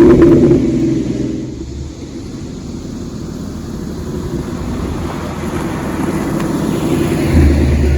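2014 Mustang GT's Coyote 5.0 V8 running through its axle-back exhaust. The note is loud at first and falls away over a couple of seconds, then builds steadily again, with a louder step near the end.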